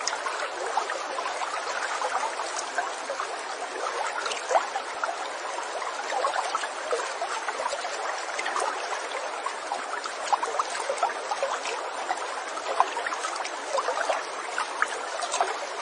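Running water babbling steadily, as a small stream does, full of tiny trickles and splashes.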